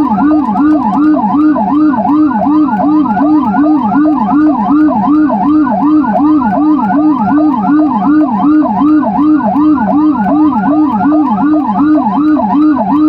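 Two electronic emergency sirens on a fast yelp at the same time, one low-pitched and one high-pitched, each warbling about three times a second without a break: an ambulance running with a military police escort's siren.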